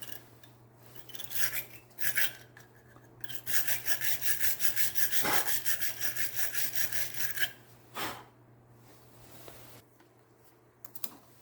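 Wire brush of a battery terminal cleaner scrubbing the inside of a crusty battery cable clamp. A couple of short scrapes come first, then quick back-and-forth strokes, about four a second, for about four seconds. A single knock follows near the end.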